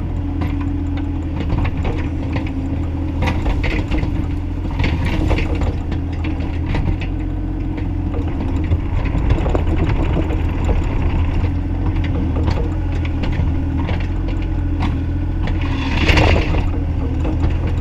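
Bobcat E35i compact excavator running steadily under work, its engine a constant low drone with scattered clanks and rattles from the machine. A brief, louder rush of noise comes near the end.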